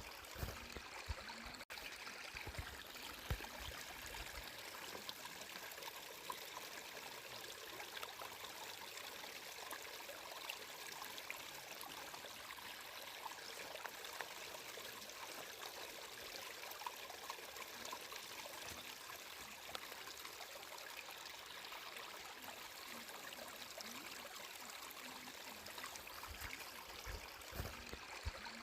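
Water flowing steadily, with many small splashes and a momentary dropout about two seconds in.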